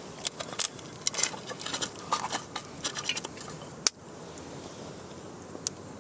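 A quick, irregular run of light clicks and clinks over steady background noise, ending with one sharper knock about four seconds in.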